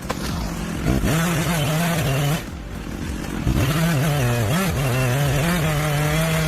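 Chainsaw running at full throttle while cutting into a giant sequoia trunk, its pitch wavering and sagging under load. It eases off briefly about two and a half seconds in, then picks back up.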